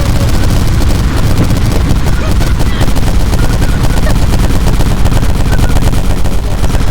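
Very loud, heavily distorted noise blasted through a microphone at full volume: a dense, rapid crackle with a heavy low rumble and no pause.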